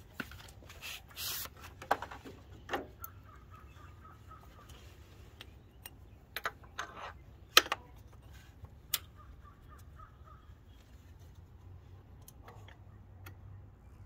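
Scattered clicks, knocks and a brief scrape of hands and a belt working against metal parts in a VW 1.9 TDI engine bay as a replacement belt is slipped onto the alternator and tensioner pulleys. The knocks are irregular, the sharpest about seven and a half seconds in.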